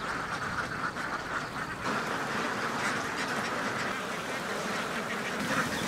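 A very large flock of domestic ducks quacking together in a dense, continuous chorus.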